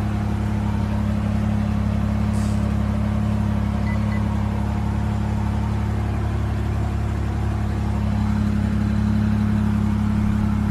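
A steady low hum that holds unchanged, with no rise or fall in pitch.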